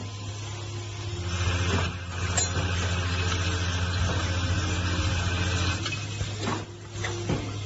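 Ultrasonic welding machine for breathing valves running: a steady low hum, with a hiss lasting about four seconds and a few sharp clicks from the machine's mechanism.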